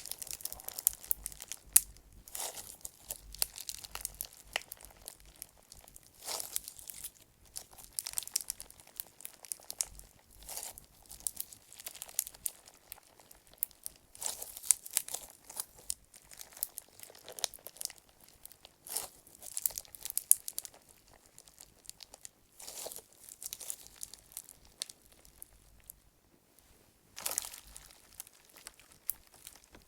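Clear slime packed with small flower-shaped clay chips being squeezed and kneaded by hand: crunchy, grinding crackles as the chips rub against each other, in irregular bursts about every second, with a brief lull shortly before the end.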